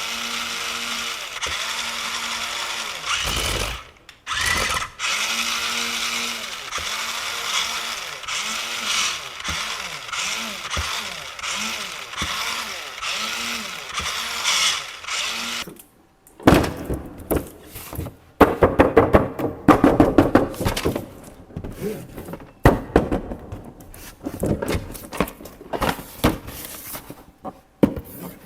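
Small electric motor and gearbox of a toy RC construction vehicle whining, its pitch wavering up and down, cutting off about sixteen seconds in. After that, a fast, uneven run of clicks and knocks.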